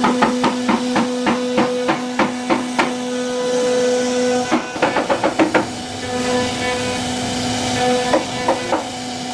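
A CNC router's spindle running with a steady whine, while sharp knocks come about three a second, then a quick flurry of knocks about halfway through and a few more near the end.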